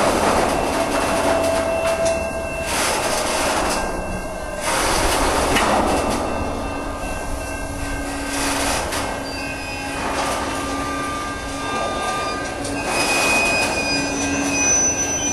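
Freight train tank cars rolling past over a railroad diamond crossing, the wheels clattering over the rail joints. Thin metallic wheel squeals come and go throughout.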